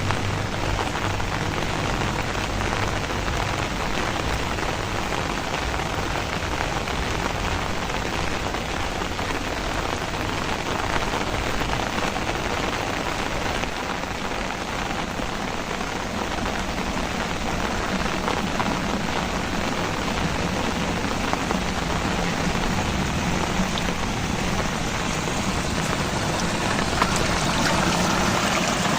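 Heavy rain falling steadily, a dense hiss of drops striking surfaces. A low hum builds near the end.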